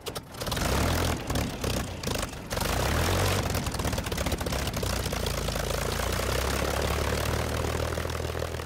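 Propeller aircraft's piston engine running. There are irregular crackles over the first two and a half seconds, then a steady run that starts to fade near the end.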